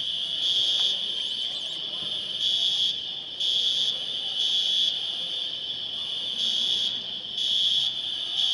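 Smoke alarm sounding: a shrill high beep repeating in groups of three, each group about four seconds apart, the standard evacuation pattern.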